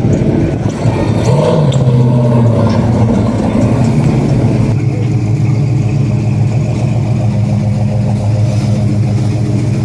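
Big-block V8 of a 1971 Chevelle SS running at low speed with a deep, steady exhaust note and a short blip of the throttle about a second and a half in.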